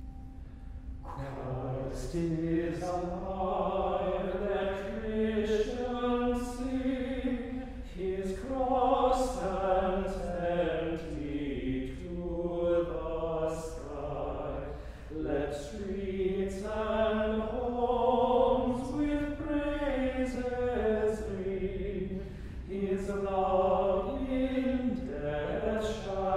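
A small choir of men's voices singing sung evening prayer (Compline) together. The singing starts about a second in and moves along in changing pitches and words.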